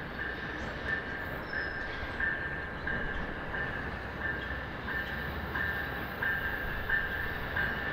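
Amtrak Siemens Charger diesel locomotive rolling slowly into a station, with a bell ringing in even strokes about one and a half times a second over the low rumble of the engine and train.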